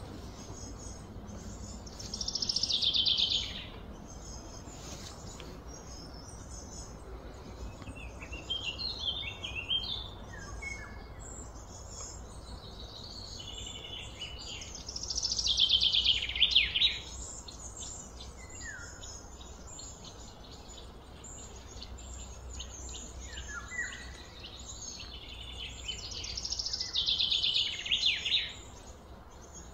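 Wild birds singing outdoors: three loud, rapid descending trills about twelve seconds apart, with scattered short chirps and falling notes between them, over a steady low background hum.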